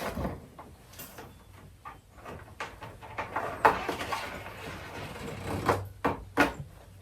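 Scattered knocks and clicks of prop parts being handled, with a stretch of rustling in the middle and two sharper knocks near the end.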